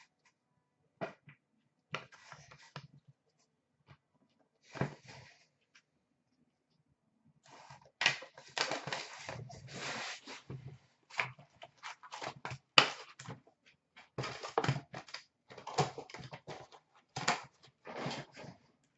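Trading-card packs and cards being handled: sparse clicks and taps, then from about eight seconds in a denser run of rustling and crinkling.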